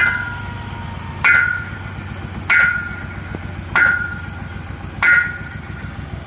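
Five evenly spaced metallic strikes, about one every 1.25 seconds, each ringing briefly like a small bell, over a steady low hum.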